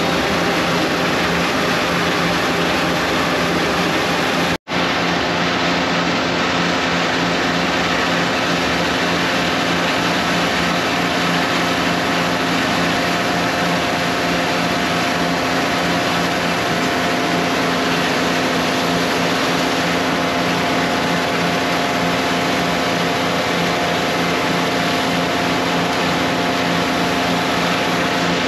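DAF combi jetting and vacuum tanker running its engine and pumps, a loud steady drone with a constant hum, while water from the jetting hose sprays into the grease trap. The sound drops out for an instant about four and a half seconds in.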